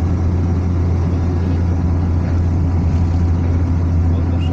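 Steady low drone of a car driving along a highway: engine and tyre noise at a constant speed.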